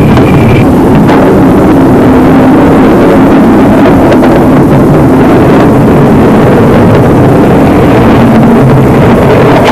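Loud, steady jet-engine roar mixed with wind noise on an aircraft carrier's flight deck.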